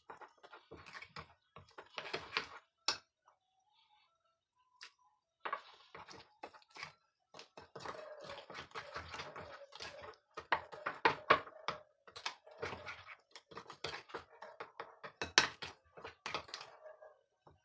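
Metal utensil clicking and scraping against a glass mixing bowl as thick pancake batter is stirred, in quick irregular taps with a pause about three seconds in.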